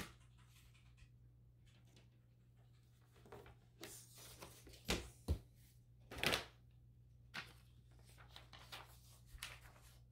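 Handling noises from a picture frame and sheets of paper being laid into it: scattered rustles and light knocks, the loudest few about five to six seconds in.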